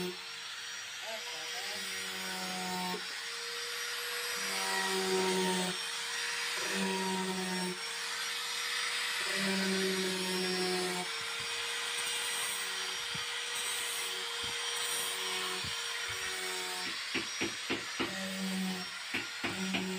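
A small handheld electric grinder with a round sanding pad runs steadily, hissing as it sands the edge of a laminate-covered desk panel flush. A string of sharp clicks comes near the end. Background music plays underneath.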